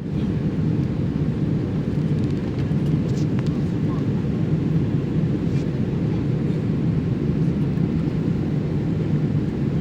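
Steady low rumble of an airliner cabin in flight: the drone of the engines and airflow heard from inside the cabin.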